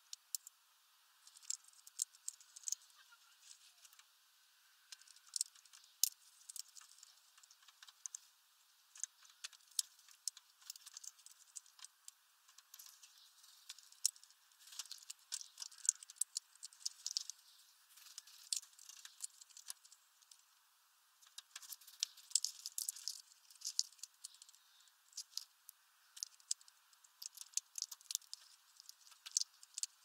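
Hawfinch cracking sunflower seeds in its bill: irregular sharp clicks and cracks coming in clusters, with short pauses between.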